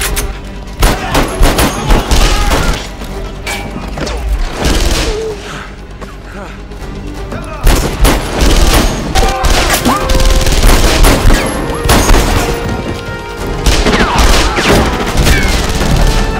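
Film gunfight: rifle shots and bursts of gunfire in rapid succession, easing off for a few seconds in the first half, then picking up again from about eight seconds in.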